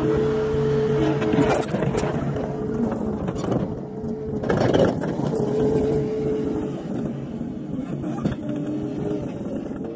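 Skid steer running and driving over a dirt site, its engine giving a steady whine, with a louder rush of noise about halfway through.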